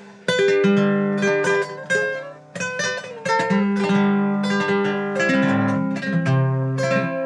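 Acoustic guitar played with a picked melody over bass notes, starting suddenly about a quarter second in.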